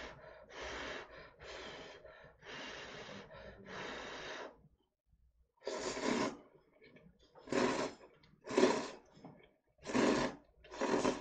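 A person blowing on a lifted clump of hot instant ramen noodles five times to cool them, then slurping the noodles in five loud slurps from about six seconds in.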